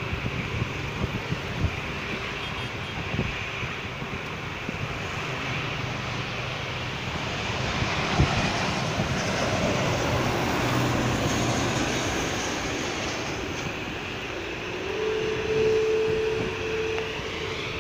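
Jet engines of a Boeing 777-200ER on low final approach, a steady rush of engine noise that swells about eight seconds in as the airliner passes overhead and eases off a few seconds later. Wind buffets the microphone throughout, and a steady hum comes in near the end.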